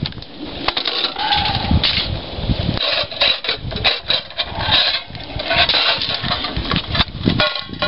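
Aluminium foil crinkling and rustling in irregular crackles as it is pressed and shaped around a metal coffee can.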